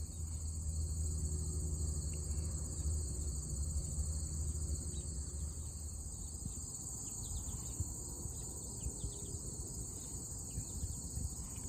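Chorus of crickets trilling steadily at a high pitch, with a low rumble underneath that is stronger in the first half.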